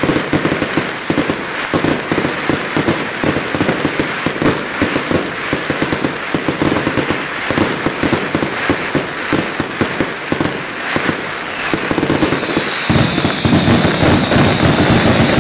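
Fireworks display: a rapid, unbroken stream of bangs and crackles from aerial shells and ground-level spark fountains. About eleven seconds in, a high whistle starts and slowly falls in pitch, and near the end the barrage grows louder and denser.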